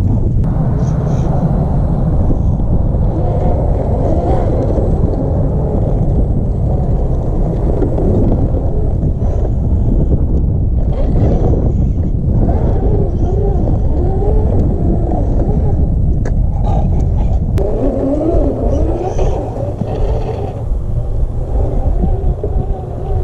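Wind rumbling on the camera microphone, with the electric motor of an Axial SCX10 II RC rock crawler whining and changing pitch in several stretches as the throttle is worked.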